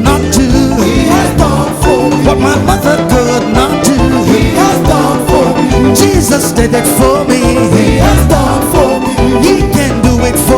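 Live band playing upbeat African gospel praise music, with a steady drum beat under a sung melody.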